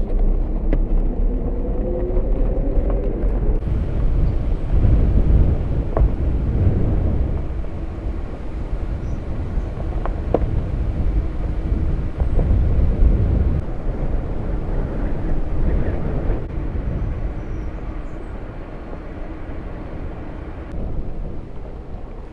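Car driving over a rough dirt track: a heavy low rumble of engine and tyres, with a few sharp knocks from the body and suspension over the ruts, easing off near the end.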